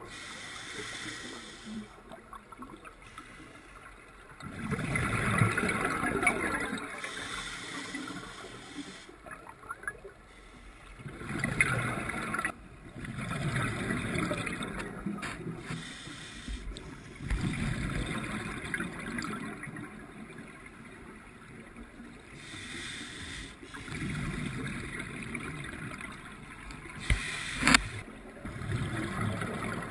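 Scuba divers' exhaled air bubbles gurgling and rushing past the underwater camera housing, in bursts every few breaths with quieter spells between. A sharp knock near the end.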